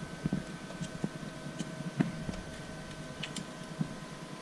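Light clicks and taps of plastic and metal parts as the brush holder and carbon brushes are pressed into a WPS 253 alternator by hand, the sharpest knock about two seconds in.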